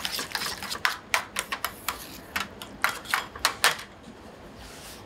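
Metal spoon clinking and scraping against a stainless steel mixing bowl while stirring chopped tomatoes into tomato sauce, in quick irregular strokes that stop about three and a half seconds in.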